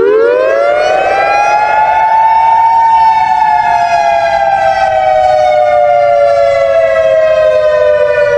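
Emergency warning siren rising in pitch over about two seconds to a high wail, then sliding slowly lower; it cuts off abruptly at the end.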